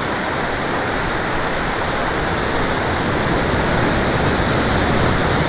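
Ocean surf breaking and washing up a sandy beach: a steady, even rushing noise.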